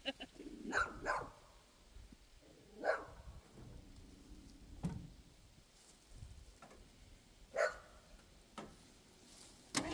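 A dog barking: a handful of short single barks spaced one to a few seconds apart.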